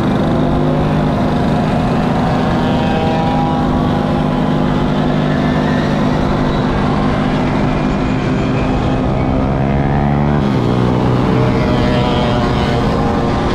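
Mopeds riding in a close pack at about 25 km/h: the small engine of the moped carrying the camera runs steadily close up, with the buzzing engines of the surrounding mopeds around it. About ten seconds in, the close engine note changes pitch.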